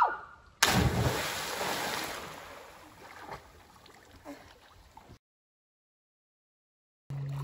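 A person's body plunging feet-first into lake water from a height: one sudden loud splash about half a second in, its wash fading over a couple of seconds. The sound then cuts to total silence near the end.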